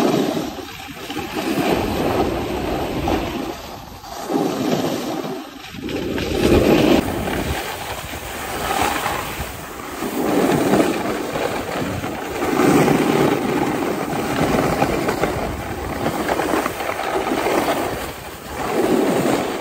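Wind rushing over the microphone and edges scraping on groomed snow during a fast downhill run. The noise swells and fades every couple of seconds as the turns go by.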